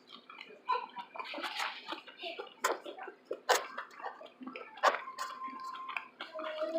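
Close-miked chewing and lip-smacking while eating a fish and shrimp taco: a string of wet mouth clicks and smacks with short moist squelching spells.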